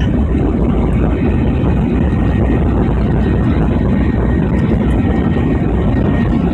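Steady, loud rumble of an airliner's engines and rushing air heard inside the passenger cabin during takeoff.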